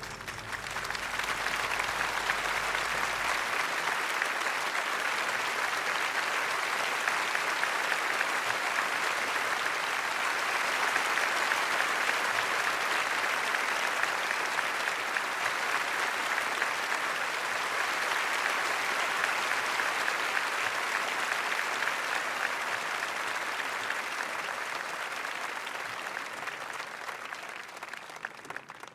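Audience applauding, a dense clatter of many hands that builds over the first second or two, holds steady, and dies away near the end.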